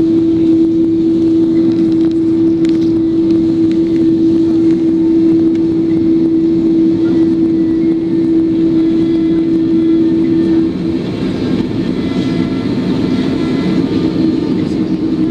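Cabin noise inside an Airbus A330 during pushback: a loud steady hum that stops about ten and a half seconds in, leaving a lower, uneven rumble.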